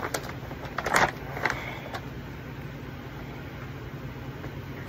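Paper shopping bag rustling and packaging crinkling as items are pulled out of it, with a few short crackles about a second in, over a steady low hum.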